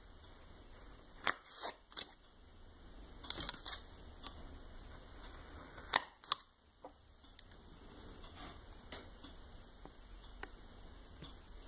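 Small nail-stamping tools being handled and set down: a few sharp clicks, the loudest about a second in and again near six seconds, with a short scraping sound around three seconds in.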